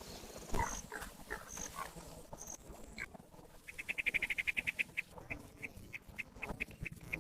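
Animal calls: a few short chirps, then a fast run of short pitched calls about a second and a half long that slows to a steady few calls a second.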